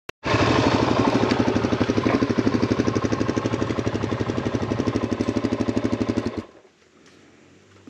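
KTM 350 EXC dirt bike's single-cylinder four-stroke engine idling with a rapid, even pulse, then switched off about six seconds in.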